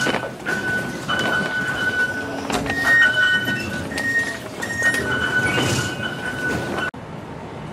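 Electronic beeps from metro fare gates, repeated tones at a few fixed pitches, over the busy hum of a Taipei MRT station. The sound cuts off abruptly about seven seconds in, giving way to quieter street ambience.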